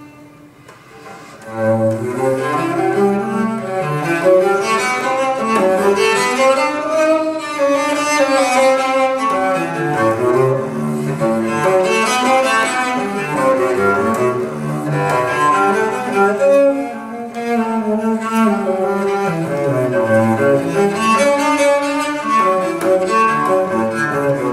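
Cello music played back from an LP through floor-standing hi-fi loudspeakers. After a short pause the bowed cello comes back in about a second and a half in and plays a flowing melody.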